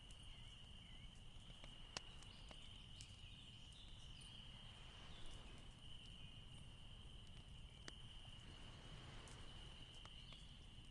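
Near silence: faint room tone with a steady high-pitched whine and a few faint clicks.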